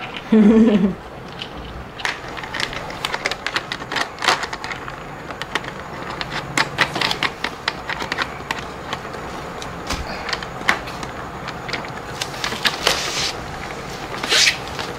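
Hard plastic toy workbench parts being fitted and twisted together: irregular clicking and clattering of plastic on plastic.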